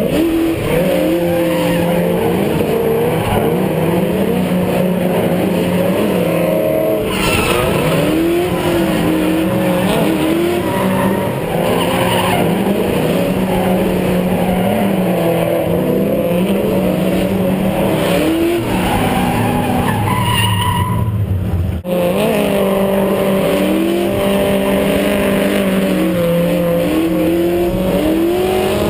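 A drift car's engine revving up and down through a run of slides, heard close up from a camera mounted on the car, with tires skidding and squealing. The sound changes abruptly twice, about 7 s and 22 s in, where one run cuts to another.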